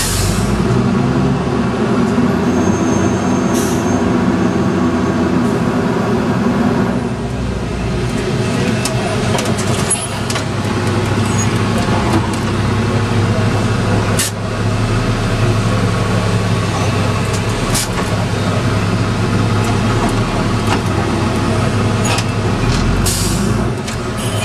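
Freightliner Condor refuse truck's diesel engine running steadily, heard from inside the cab, with several short sharp clicks and knocks scattered through it.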